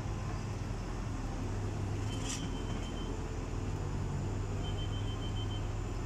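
Liebherr 906 excavator's diesel engine running with a steady low hum. A sharp clank comes a little over two seconds in, and there are two brief thin high tones.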